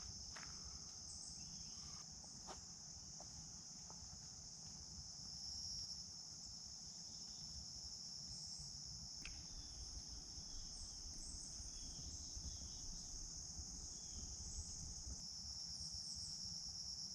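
A steady, shrill insect chorus, one unbroken high buzz, with a few faint footsteps in the first few seconds.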